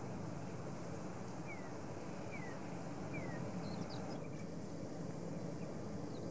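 Steady low rumble of wind and a distant taxiing jet airliner, with a small bird's three short, falling chirps between about a second and a half and three seconds in.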